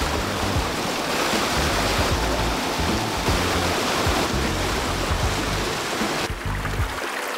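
Whitewater rushing through a boulder chute, under background music. About six seconds in the rushing cuts off sharply, leaving the music over quieter water.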